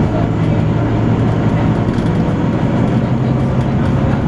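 Volvo B9TL double-decker bus's 9-litre diesel running steadily under way, with the vacuum-cleaner-like whine that earns these buses the nickname 'hoover'.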